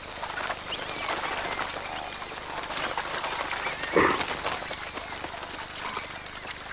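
Field sound of a large flock of cormorants massing on a lake: a steady wash of noise with scattered bird calls, and one louder short burst about four seconds in.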